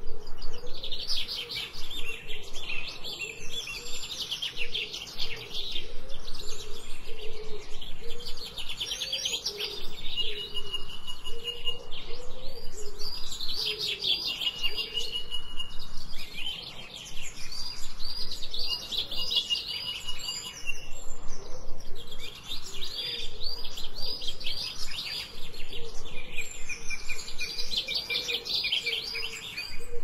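Songbirds singing: rapid high trills and runs of repeated chirps in phrases a few seconds long, with short pauses between phrases.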